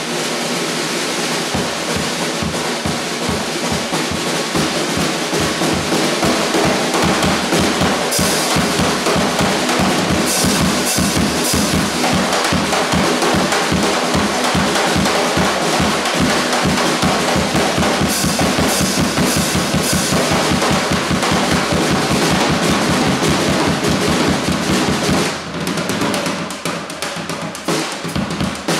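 Gretsch drum kit played live: a fast, busy groove of snare, toms and bass drum with cymbal crashes a few times, loosening into sparser, lighter playing for the last few seconds.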